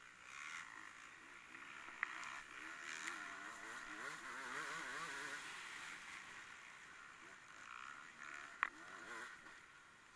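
Faint vehicle engine running under a hiss, its pitch rising and falling, with two sharp knocks, one about two seconds in and one near the end.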